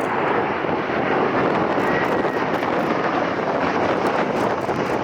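Airliner jet engines running with a steady, even rushing noise.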